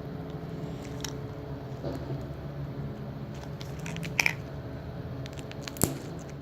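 Homemade beaded green slime being squeezed and pressed by hand, giving scattered crunchy clicks and pops as the little beads crackle. The sharpest pops come a little past four seconds and near six seconds.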